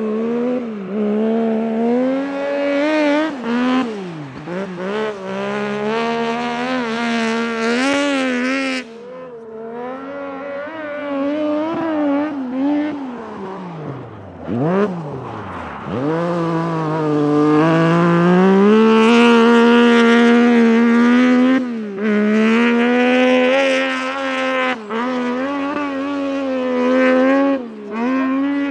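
Triumph 675 three-cylinder motorcycle engine in a Piaggio Ape proto race car, revving hard, with the revs rising and falling again and again. About halfway through the revs fall away, then climb and are held high for several seconds.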